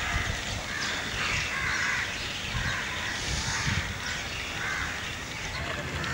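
Harsh animal calls repeating in a string, several per few seconds, over a low steady rumble.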